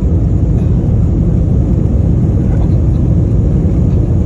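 Airliner cabin noise during the takeoff roll: a loud, steady low rumble of the engines and the rolling wheels, heard from inside the passenger cabin.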